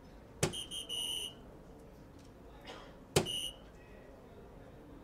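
Two soft-tip darts strike a DARTSLIVE electronic dartboard about two and a half seconds apart, registering a triple 17 and a single 17. Each sharp tap is followed by the machine's short electronic beeping hit sound; the first beeping runs longer than the second.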